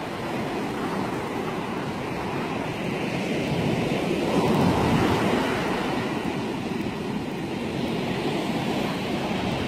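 Ocean surf washing onto a sandy beach, one wave swelling and breaking about halfway through.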